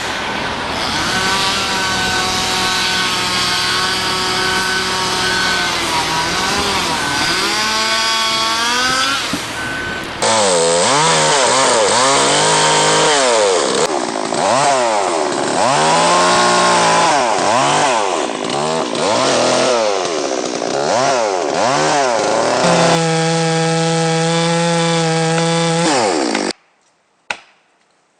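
Chainsaw running hard and revving up and down as it cuts wood. About ten seconds in the sound changes abruptly, then the saw surges in repeated revs before holding at a steady high speed, and it cuts off sharply near the end.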